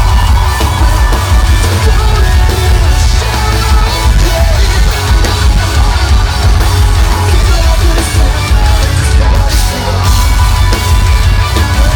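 Live metalcore band playing loud, with distorted guitars, heavy bass and drums, and harsh yelled vocals, heard through a heavily overloaded audience recording.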